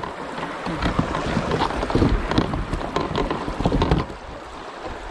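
River riffle rushing and splashing around a kayak's hull as it drifts through shallow rapids. The water noise drops off about four seconds in.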